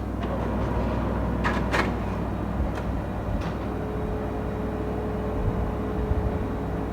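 HP laser printer running with a loud, steady mechanical grinding noise, with a few light clicks in the first few seconds and a steady hum-like tone joining about four seconds in.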